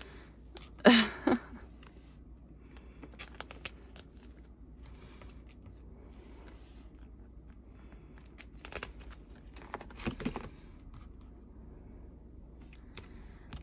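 Clear plastic binder sleeves crinkling and rustling as photocards are slid into the pockets and pages are handled, in scattered short bursts. A louder brief sound comes about a second in.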